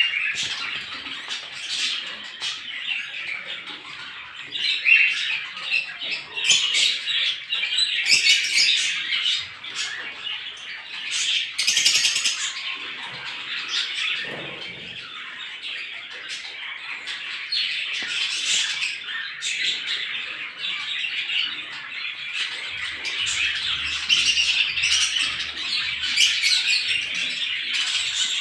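Many small birds chirping at once in a dense morning chorus, their short calls overlapping without a break.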